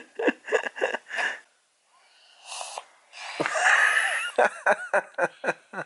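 A young child's breathy, wheezy mouth and breath sounds: a quick run of short breaths, a pause, a longer breathy stretch, then another quick run of short breaths near the end.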